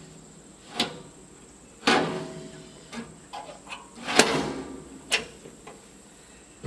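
Steel firebox door of a Char-Griller Smokin' Champ smoker being opened and shut, giving about five sharp metal clanks that ring briefly, the loudest about four seconds in.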